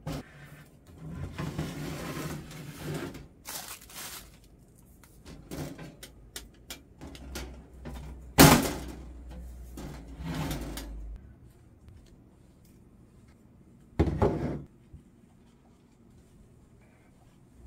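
Clatter and knocks of parts being handled during assembly of an IKEA mini greenhouse: scattered clicks and rustles, a sharp knock about halfway through that is the loudest sound, and another thump a few seconds later.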